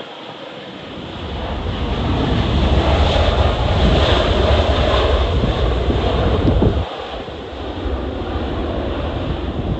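Gusty wind buffeting the microphone, mixed with the engine noise of jet aircraft. It builds over the first two seconds, stays loud, and drops off sharply about seven seconds in.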